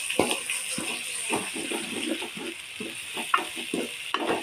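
Chopped onions and ginger-garlic paste sizzling in hot sesame oil in a metal pot, with a spoon stirring and scraping the pot bottom in short, irregular strokes.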